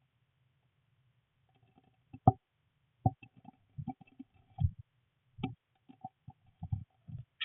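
Irregular muffled knocks and scuffles inside a wooden nest box, starting about two seconds in, with faint high begging peeps from blue tit nestlings.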